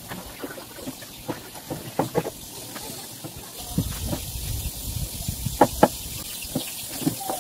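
A knife cutting tomatoes on a wooden cutting board: irregular taps of the blade on the board, with two sharper knocks close together near the end, over a steady hiss. A low rumble comes in about halfway through.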